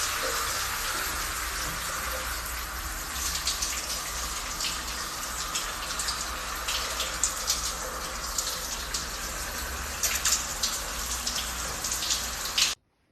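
Water running steadily, with a few sharp ticks scattered through it; it cuts off suddenly near the end.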